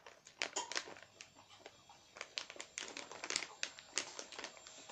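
Plastic snack bag crinkling on and off, with quiet sharp rustles and clicks, as hands work at tearing open a bag that is hard to open.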